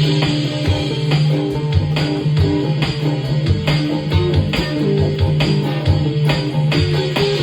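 Instrumental band improvisation: electric guitar and bass playing over a steady beat.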